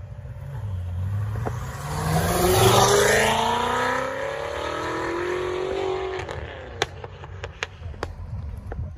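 Car accelerating hard away, its engine revving up in rising pitch, shifting up about three seconds in and pulling up again before fading into the distance. A few sharp clicks near the end.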